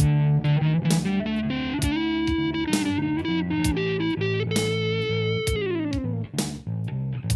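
Guitar playing a slow blues accompaniment, picked notes and chords ringing over a sustained low note, with one note sliding down in pitch about five and a half seconds in.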